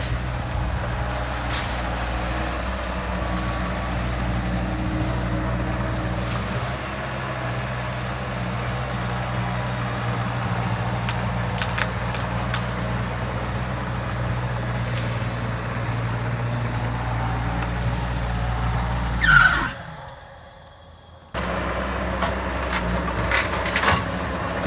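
Bobcat skid steer engine running steadily under load while the grapple works trees, with occasional sharp cracks. Near the end comes a short high squeal, then the sound drops out for about a second and a half before the engine returns.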